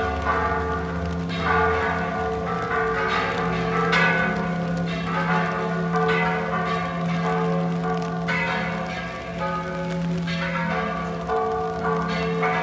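Church bells ringing a festive repique, the peal that announces a parish's patronal feast: bells struck in quick, irregular succession over the steady ringing hum of the struck bells.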